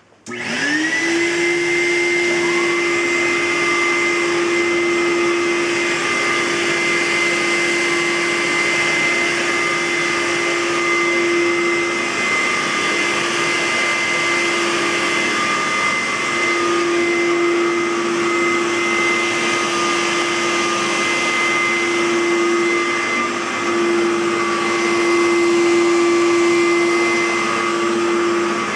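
Aerus Lux Guardian upright vacuum cleaner switched on, its motor spinning up within about a second and then running steadily with a high whine.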